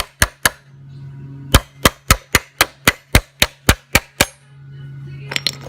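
Hammer striking a steel bracket to bend it, in quick blows about four a second with a short break about half a second in; the hammering stops a little after four seconds in, followed by a brief clatter near the end. A steady low hum runs underneath.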